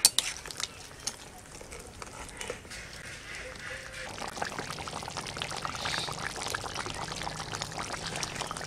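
Chicken and green jackfruit curry bubbling in a pot over the heat, with a dense crackle of bursting bubbles that grows busier and a little louder about halfway through.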